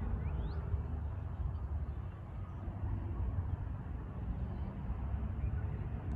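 Diesel freight locomotives running with a steady low rumble. A bird chirps once near the start.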